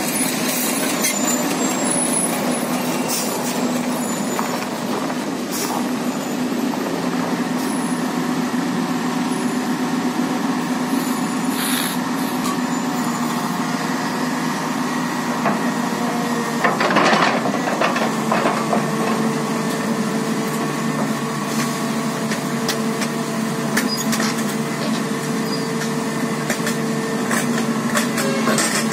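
Large tracked hydraulic excavator's diesel engine running steadily, a constant mechanical hum. About 17 seconds in there is a short clatter of knocks, and a higher steady tone joins the engine sound after it.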